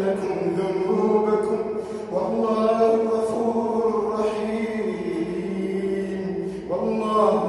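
A man's voice chanting Quranic recitation in the melodic tajweed style, holding long notes that glide slowly in pitch, with new phrases starting about two seconds in and again near the end.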